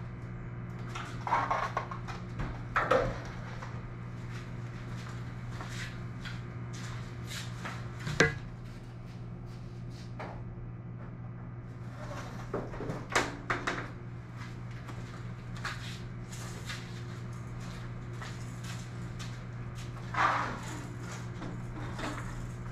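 Fishing rods in rod socks being set into PVC pipe coupler holders on a garage door: scattered knocks, clicks and rustles, with one sharper knock about eight seconds in, over a steady low hum.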